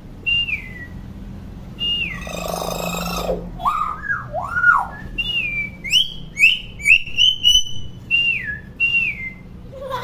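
Common hill myna calling: a string of loud short whistles, several sliding down in pitch, a harsh rasping note about two seconds in, lower rising-and-falling whistles around four seconds, then a quick run of whistled notes and more falling whistles near the end.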